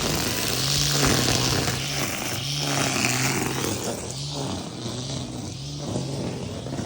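Battery-powered brush cutter running with a steady motor hum while its cutting head slashes through grass, the cutting noise swelling and fading with each side-to-side sweep, about every second and a half.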